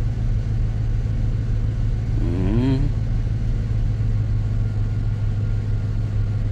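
RAM pickup's engine running at idle with a steady low drone. A brief vocal sound comes about two and a half seconds in.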